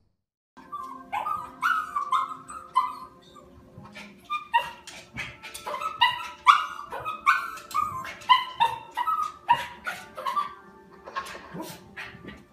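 A dog barking repeatedly in short barks, about two a second, starting about half a second in, over a faint steady tone.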